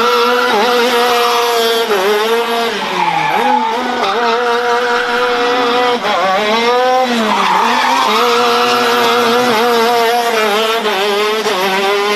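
Racing kart engine running at high revs. Its pitch drops sharply a few times as it comes off the throttle and climbs back up as it accelerates again.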